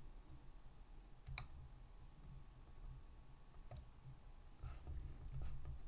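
Faint computer mouse clicks over low background hum: one sharp click about a second and a half in, then a couple of softer ones near the end.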